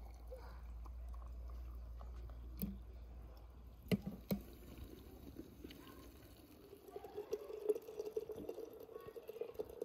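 Water being poured into glass jars of fruit and sugar, the stream running into the filling jar. A few sharp clicks about three to four seconds in.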